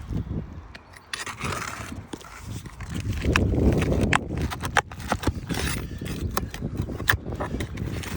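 Pry tool scraping and knocking under roof shingles as roofing nails are worked loose, with a run of sharp clicks and taps; the nails have ripped through the shingle, which makes them hard to pry out.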